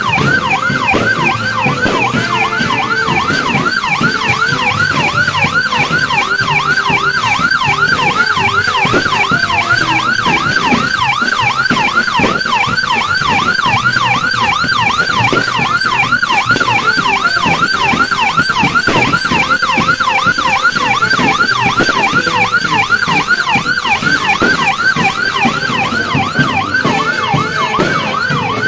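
Electronic siren in a fast yelp, its pitch sweeping up and down about three times a second.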